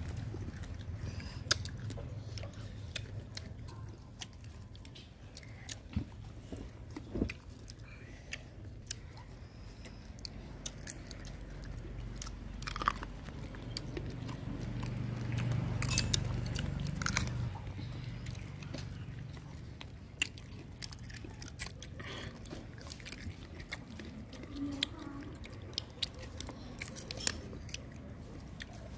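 People biting into and chewing crunchy raw fruit slices, with sharp crunches scattered irregularly throughout. A low rumble swells and fades around the middle.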